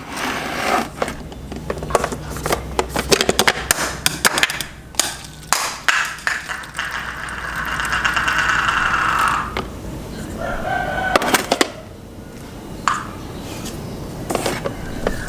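Clattering of a bowl and utensils being handled, then hot water poured into a small bowl for about three seconds.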